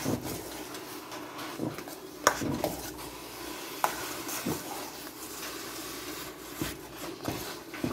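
A metal spoon stirring thick soor, a maize porridge, in a steel pot, with scattered clinks and knocks of the spoon against the pot.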